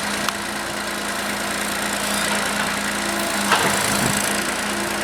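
A tractor engine running steadily with a constant low hum. There is a sharp click just after the start and a brief rustle about three and a half seconds in.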